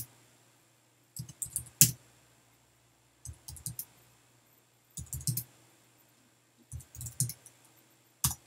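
Computer keyboard keys being typed in about five short bursts of clicks, with pauses of a second or so between them.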